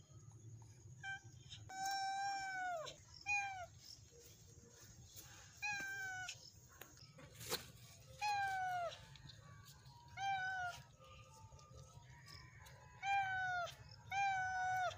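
A Bahraini Dilmun cat meowing repeatedly, about seven meows, some long and some short, each falling in pitch at the end. A single sharp click comes about halfway through.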